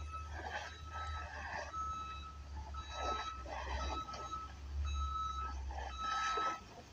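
Electronic beeper sounding a steady tone about once a second, over a low vehicle rumble that fades near the end.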